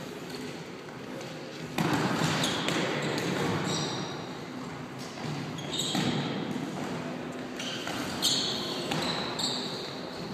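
Floorball play in a gym hall: sticks clacking on the plastic ball and running feet on the hard floor, echoing in the large room. The din jumps up sharply about two seconds in and again near six and eight seconds as play surges.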